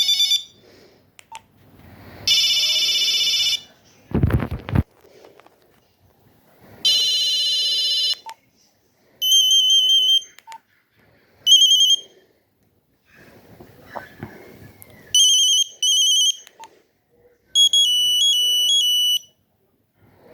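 Nokia 2100 mobile phone's monophonic speaker playing a series of short, buzzy beep tones, one alert after another with pauses in between; the last is a stepping melody near the end. A low thump about four seconds in.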